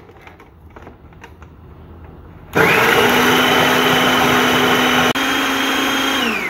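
Kenwood food processor motor starts suddenly about two and a half seconds in and runs steadily with a whine, blending ginger and garlic into paste, then is switched off near the end and winds down with falling pitch. Before it starts, a few light clicks of the plastic bowl and lid being handled.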